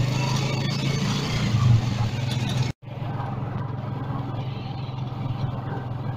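A motor vehicle's engine running steadily with a low hum. The sound drops out for a moment a little before halfway, then the engine hum comes back somewhat quieter.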